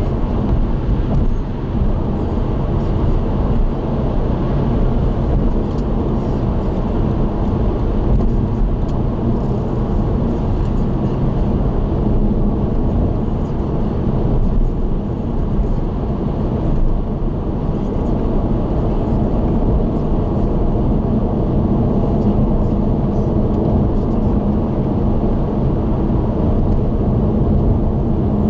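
Car driving at expressway speed: steady tyre and engine noise with a low hum.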